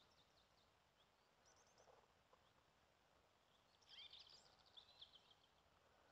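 Faint songbird chirping: a short run of quick high notes about a second and a half in, then a louder, busier burst of chirps about four seconds in.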